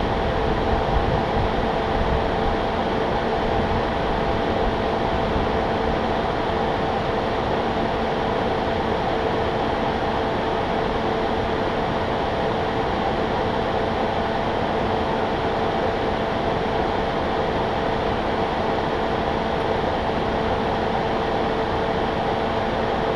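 A steady mechanical hum with a rushing, fan-like noise and several constant tones, unchanging throughout.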